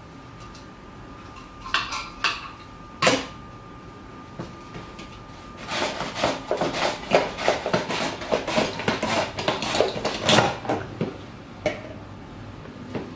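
A vegetable is slid back and forth over the blade of a plastic mandoline slicer. A few clicks and knocks of the plastic slicer and hand guard come first, then from about halfway through a quick run of scraping cutting strokes lasts about five seconds.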